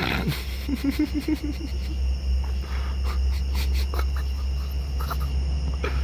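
A man making a low, rapidly pulsing growl-like noise with his voice to get a deer's attention, about six pulses in a second, followed by a scattered run of sharp clicks.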